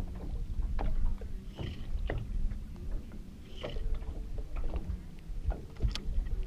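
Water slapping irregularly against a small boat's hull, with wind on the microphone and a steady low electric hum underneath from the Minn Kota Terrova bow-mount trolling motor holding the boat in place on anchor mode.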